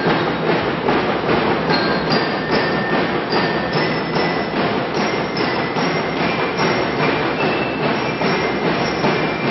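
A drum and lyre corps playing: marching drums keep a steady beat under a melody of bell lyres, the metal-bar lyres ringing out short high notes.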